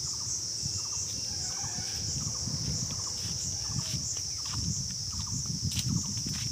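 A steady high-pitched drone of insects, pulsing slightly, with irregular footsteps on dry leaf litter and a dirt path underneath.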